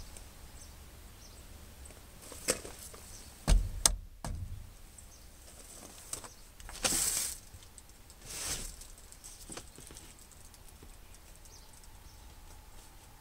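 Scattered handling noises of things being moved about in a cluttered truck cab: a few light knocks, a louder low thump about three and a half seconds in, and short rustles around the middle.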